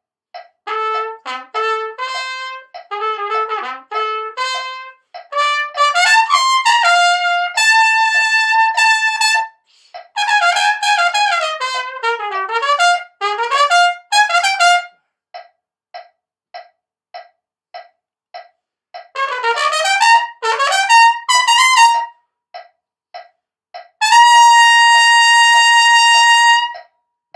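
Solo trumpet playing a lead trumpet part in short phrases with rests between them, ending on a long held high note. A steady click keeps the beat underneath, a little under two a second.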